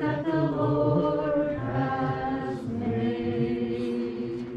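A group of voices singing together in slow, long-held notes.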